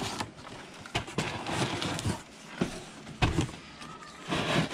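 Cardboard box rustling and scraping as a mountain-bike jump ramp is pulled and shifted inside it by hand, with several sharp knocks as the ramp bumps against the box.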